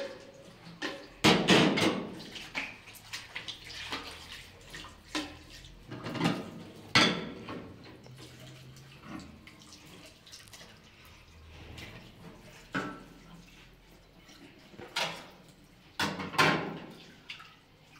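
Dishes washed by hand in a stainless steel sink: plates and a metal pan clatter and clink every few seconds over water trickling and dripping from the tap.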